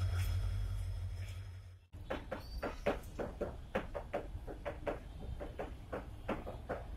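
Low rumble of a freight train's wagons rolling past, fading out about two seconds in. After a sudden cut, a run of sharp irregular clicks and knocks, several a second.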